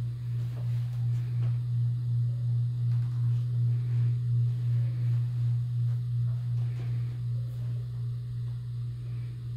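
A low steady hum that throbs about two to three times a second.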